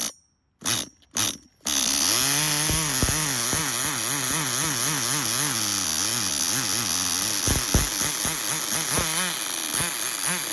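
Small two-stroke nitro glow engine of a Tamiya TGS-R RC car sputtering twice, then catching and running with a pitch that wavers up and down, an unsteady idle that the owner takes for the idle being tuned too low.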